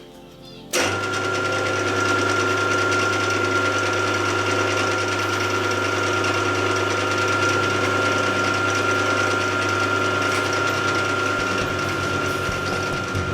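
Milling machine spindle switched on about a second in and running steadily, with a low hum and a high, constant whine.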